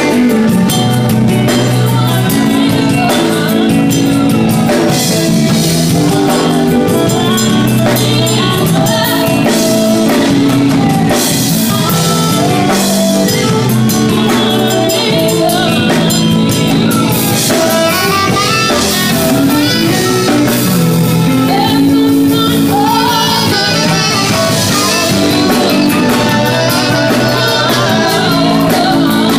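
Live gospel band playing loudly: a saxophone carries the melody over drum kit, electric guitar and keyboard.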